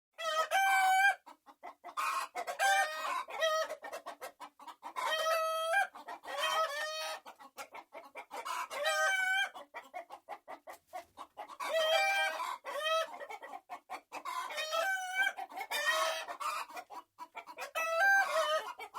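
Domestic hen cackling: runs of short, rapid clucks, each run ending in a longer, louder drawn-out call, about every three seconds.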